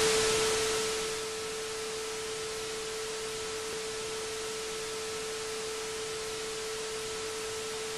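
Steady test-pattern tone over TV static hiss. The hiss is loud at first and settles to a lower, even level after about a second.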